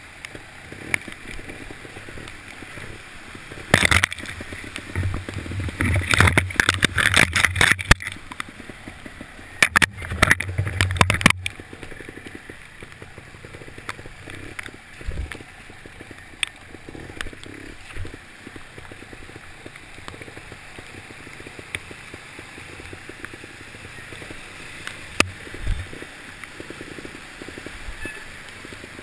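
Dirt bike ridden up a shallow, rocky stream: the engine running with water splashing and churning around the wheels, loudest in sudden bursts about 4 seconds in and again from about 6 to 11 seconds in.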